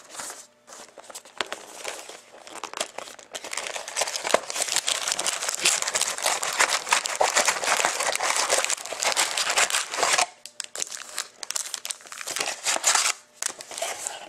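Plastic wrapping crinkling and tearing, irregular and continuous with a few short pauses, as a sealed box of hockey trading cards and its packs are unwrapped.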